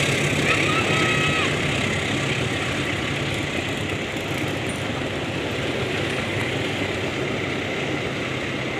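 KRL commuter electric train passing along the track: a steady rush and rumble of wheels and running gear that eases slightly over the seconds. A thin high tone sounds over it for about the first second and a half, then stops.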